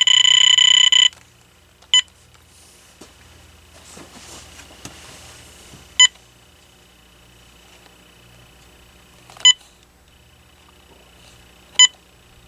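Electronic beeps from an AT&T 7720 cordless phone: one long beep of about a second at the start, then four short single beeps a few seconds apart, with a faint steady whine between them.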